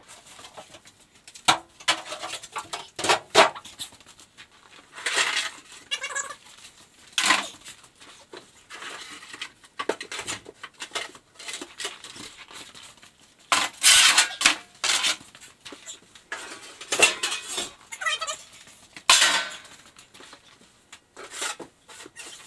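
Loose car body panels being handled and shifted, sheet metal clanking and rattling in irregular knocks, some of them ringing briefly.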